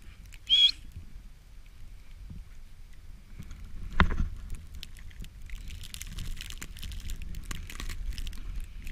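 Wind rumbling on a GoPro microphone in a snowstorm. A short high squeak comes just after the start, then a loud knock about four seconds in as a husky puppy brushes the camera. In the last few seconds there is crackly crunching of snow close to the microphone.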